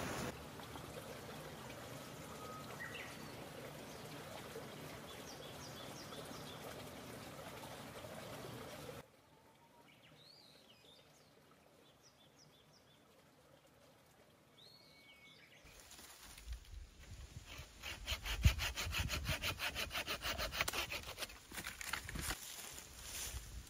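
Saw cutting wood in quick, even rasping strokes, starting about two-thirds of the way in and the loudest sound here. Before it, a steady rushing noise drops away suddenly to a quiet stretch with a few faint high chirps.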